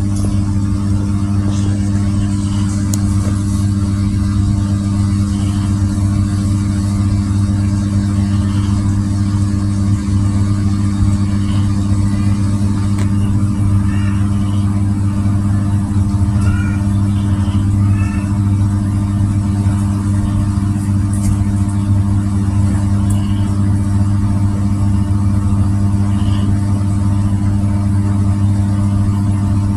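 A steady low machine hum at one unchanging pitch.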